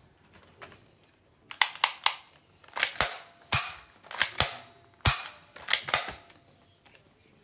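Black plastic soft-bullet toy pistol snapping: about eleven sharp clicks, several in quick pairs, from about a second and a half in until about six seconds in.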